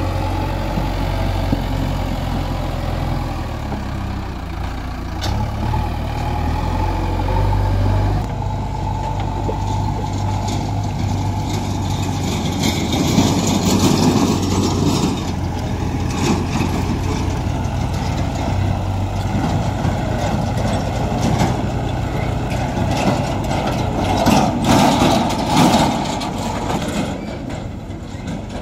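Diesel engine of a JCB 3DX backhoe loader running close by, a low drone that shifts in pitch over the first few seconds. About eight seconds in, the sound changes to a rougher engine noise that swells louder twice, with a tractor's engine mixed in.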